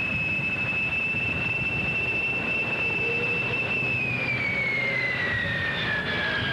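EA-3B Skywarrior's twin turbojets whining over a rumble, the high whine steady at first and then falling in pitch from about four seconds in as the jet passes on the runway.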